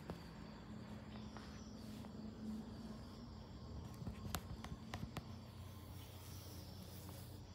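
Two cats wrestling on a tiled floor: a few soft taps and scuffs from paws and claws over a faint, steady low hum.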